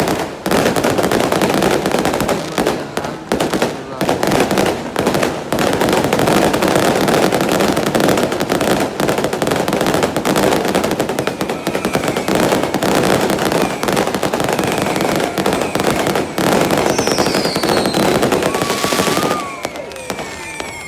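Fireworks going off in a dense, continuous barrage of rapid bangs and crackles, thinning out shortly before the end. A few short whistling glides sound near the end.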